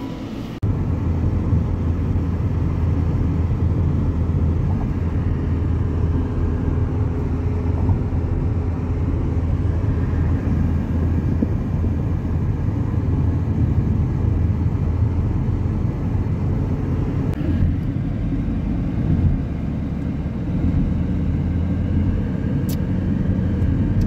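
Steady low drone of a car driving at highway speed, heard from inside the cabin: tyre and engine noise. It starts abruptly about half a second in.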